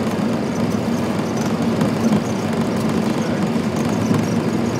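Steady rumble and roar in the cockpit of a Boeing 737 rolling out along the runway just after landing.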